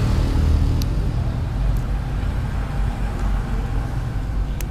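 Steady low rumble of passing road traffic, with a couple of faint clicks.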